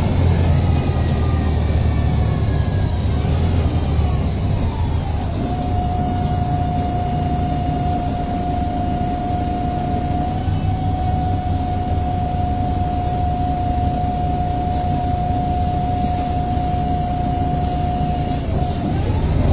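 Inside a MAN 18.220LF single-deck bus: diesel engine rumble with a drivetrain whine that falls as the bus slows during the first five seconds, then holds as one steady whine while it stands with the engine idling, and rises again as it pulls away near the end. A faint high squeal comes in during the slowdown.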